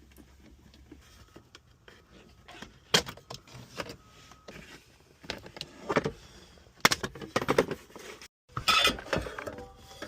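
Scattered knocks, clicks and clatters of small objects being handled and tossed into a box inside a car's cabin, with louder clatters about 3, 6, 7 and 9 seconds in.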